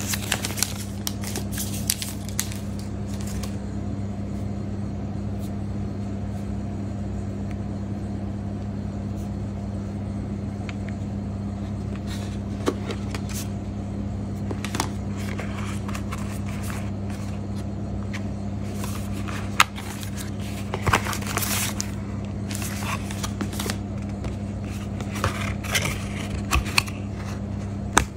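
Plastic protective film crackling as it is peeled off a smartphone in the first few seconds, then scattered taps, scrapes and rustles of the cardboard box and paper packaging being handled, over a steady low hum.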